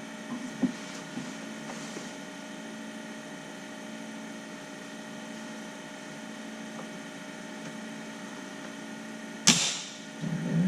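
A plastic dash trim piece popping out of its clips with one sharp snap about nine and a half seconds in, after a few faint handling clicks, over a steady low hum.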